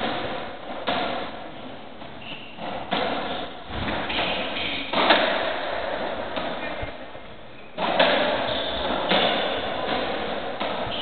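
A racketball rally on a squash court: the ball is struck by rackets and smacks off the walls at irregular intervals of a second or two, each hit echoing in the enclosed court.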